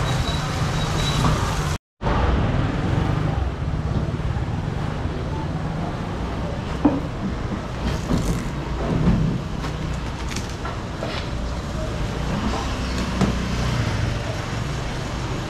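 Steady rumble of street traffic and busy market bustle, with a few short, sharp knocks and clatters and faint voices. The sound cuts out for a moment about two seconds in.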